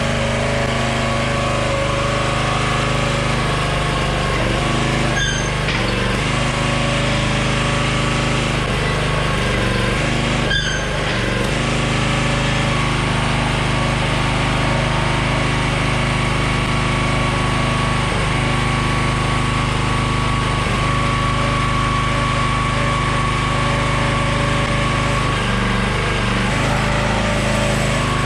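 Small gasoline engine of a Troy-Bilt log splitter running steadily, driving the splitter's original hydraulic pump, with two brief clinks at about five and ten seconds in.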